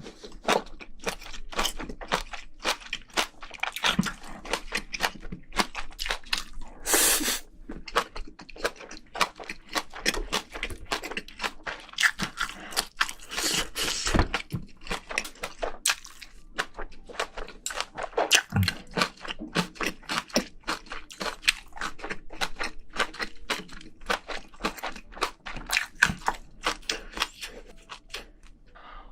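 Close-miked eating sounds of haemuljjim, Korean spicy braised seafood: continuous chewing and crunching made of many quick crackles and clicks.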